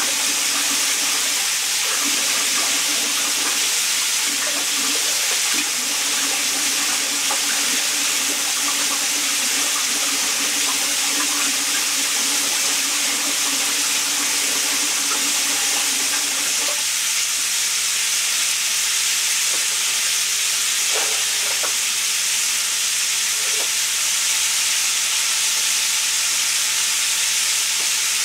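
Chicken wings deep-frying in oil in a cast-iron Dutch oven: a steady, hissing sizzle of bubbling oil.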